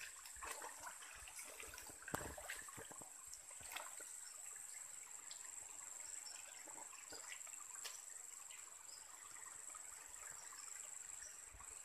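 Faint trickle of a shallow rocky stream under a steady high-pitched hiss, with a few light knocks.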